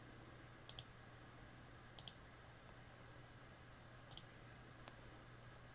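Three faint computer mouse clicks over near silence, each a close pair of ticks, then a softer single tick near the end.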